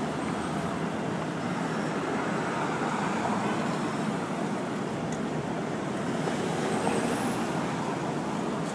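Steady noise of city street traffic.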